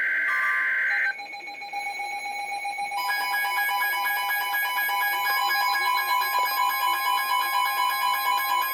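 Emergency Alert System tones: the last of a warbling SAME digital header burst cuts off about a second in, then a steady alert tone begins and, from about three seconds, a rapidly pulsing beeping alarm tone joins it.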